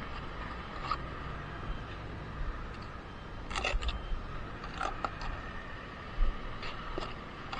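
Bricklaying work: a handful of sharp clinks and scrapes, as of a steel trowel on brick and mortar, over a steady low rumble.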